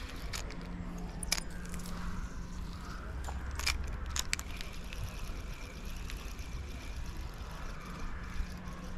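Steady low hum of distant road traffic, with a few sharp clicks in the first half as the spinning rod and reel are handled for a cast.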